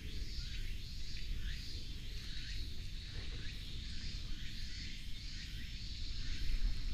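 Outdoor woodland ambience: a high chirping call repeating about every two-thirds of a second over a steady high hiss, with a low rumble underneath.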